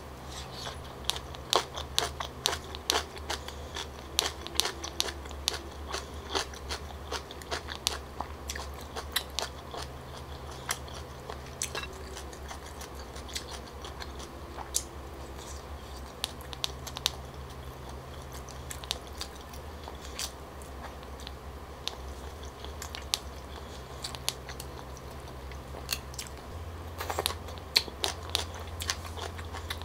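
Close-miked chewing and biting of a person eating stir-fried seafood tteokbokki (chewy rice cakes, squid balls, shrimp), with many quick wet mouth clicks and smacks. A low steady hum runs underneath.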